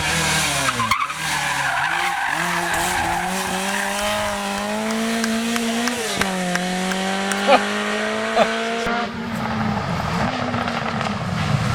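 Rally car engine driven hard, its pitch falling steeply near the start, then climbing, with a drop at a gear change about six seconds in before it climbs again. Two sharp cracks come near the end, then the engine note gives way to a rushing tyre and road noise.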